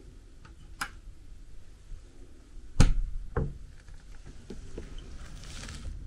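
Metal slide bolt on a wooden door clicking as it is worked, then a sharp bang and a second knock about three seconds in as the door is opened, with a short scraping rustle near the end.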